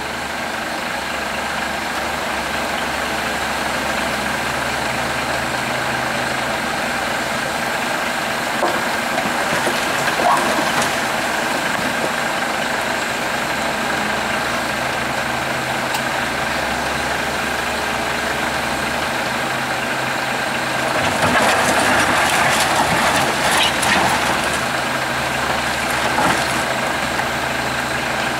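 Volvo EC210CL tracked excavator at work, its diesel engine running steadily under load with a steady whine, alongside a heavy truck's diesel idling. About two-thirds of the way through, concrete rubble clatters and bangs for a few seconds, the loudest sound here, with a couple of single knocks earlier.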